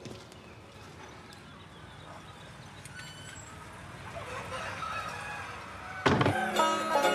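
Faint chicken clucking over quiet farmyard background noise, then plucked banjo music comes in loudly about six seconds in.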